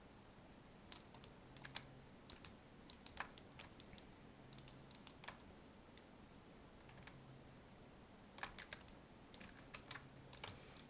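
Faint computer keyboard keystrokes and clicks, coming irregularly in scattered clusters.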